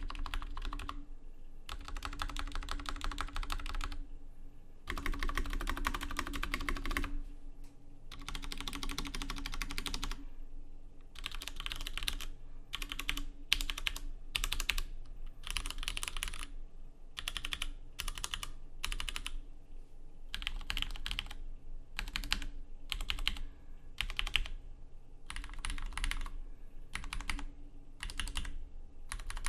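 Leopold FC750R PD mechanical keyboard with stock Cherry MX Brown switches and PBT keycaps being typed on. Several runs of fast continuous typing give way, about a third of the way through, to a steady series of short separate bursts of keystrokes, roughly one and a half a second.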